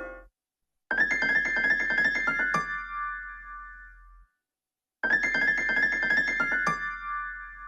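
iPhone tone: a quick, bright run of electric-piano-like notes ending on a held note that fades, played twice, about four seconds apart.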